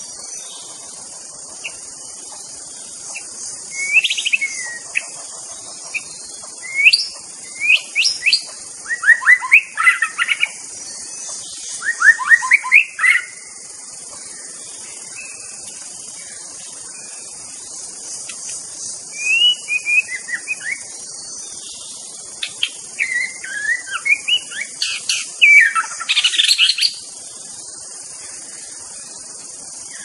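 White-rumped shama singing: spells of loud, varied whistled phrases and quick trills, sweeping up and down, with a quiet pause midway. A steady high buzz of insects runs underneath.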